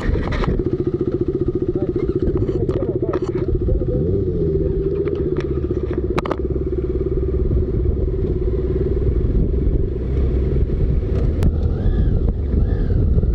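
Suzuki GSX-S750 motorcycle's inline-four engine idling steadily, with a few light clicks over it.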